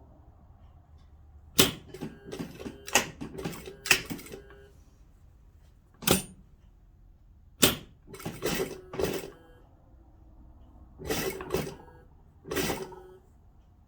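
Sewing machine stitching in short runs of about a second, each with a steady hum, separated by pauses and sharp single clicks.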